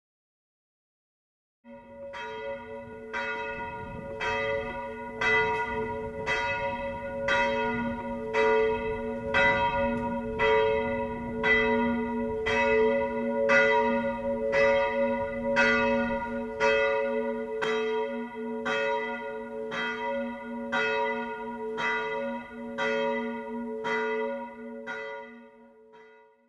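A church bell tolling steadily, about one stroke a second, each stroke's hum carrying into the next. It starts a couple of seconds in and fades away near the end.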